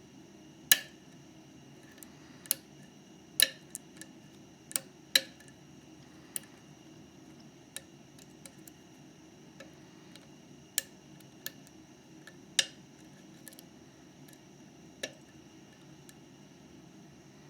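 Irregular sharp metallic clicks and ticks of a lock pick working the pins of a Mauer MLS euro cylinder lock, about a dozen spread unevenly, some louder than others.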